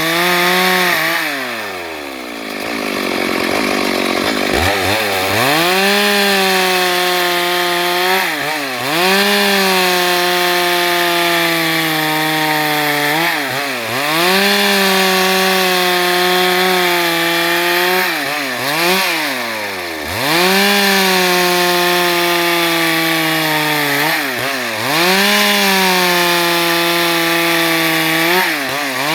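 Stihl MS 382 two-stroke chainsaw sawing planks at full throttle. Every few seconds its pitch dips and climbs back as the throttle is eased and reopened, with one longer drop toward idle about a second in before it revs back up.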